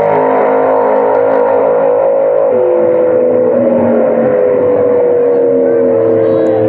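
Engines of two drag-racing cars running down the strip, loud and steady, their pitch sagging slowly as they pull away.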